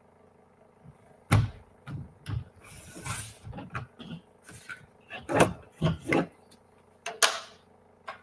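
Creative Memories 12-inch straight-blade paper trimmer cutting a sheet of patterned paper: the cutting head clacks and slides down its rail with a scraping swish. Then come paper rustling and several sharp knocks as the cut pieces and the trimmer are handled.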